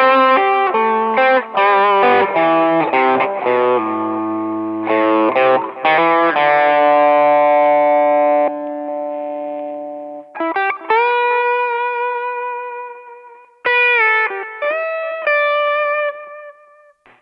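Electric guitar played through an MXR CSP202 Custom Comp compressor pedal: a busy run of notes and chords, a chord left to ring out, then a few single notes with string bends that die away near the end.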